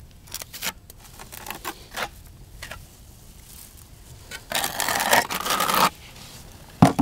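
Plastering trowel scraping corner-bead mortar smooth on a wall: a few short scrapes, then one longer, louder scrape about four and a half seconds in. A sharp knock near the end.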